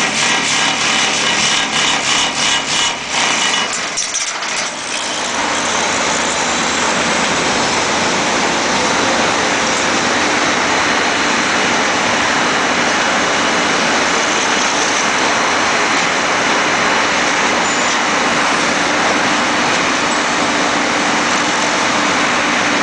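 Vibratory pile hammer and its engine running while driving a steel H-pile. The sound pulses unevenly for the first few seconds, dips briefly, then settles into a steady, loud noise.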